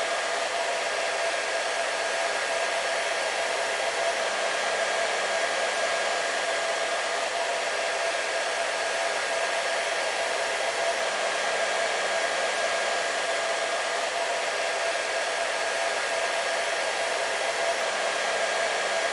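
Hair dryer running steadily: a constant rush of air with a steady whine on top, unchanging throughout.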